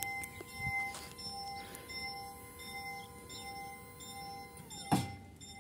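Level-crossing warning bell ringing in quick electronic dings, about two a second, while the barrier boom lowers. A steady whine under the dings drops away about four and a half seconds in, followed by a single loud thunk as the barrier comes to rest.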